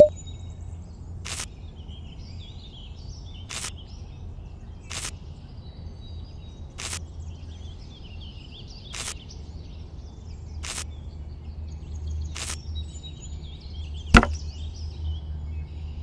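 Light, sharp clicks about every two seconds as thin bamboo skewers are pushed into sand to stake seedlings, then a louder knock near the end.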